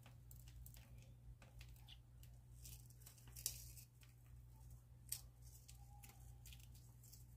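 Near silence over a low steady hum, with a few faint light rustles and two brief soft clicks about three and a half and five seconds in, as crushed vanilla wafer crumbs are sprinkled by hand onto pudding in a plastic container.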